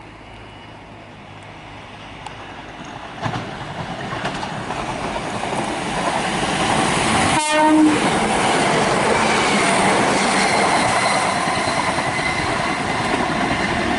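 Electric multiple-unit passenger train approaching and running through the station at speed without stopping, growing louder for a few seconds before it passes, with the wheels clattering over the rails. A short horn note sounds about halfway through, at the loudest moment of the pass.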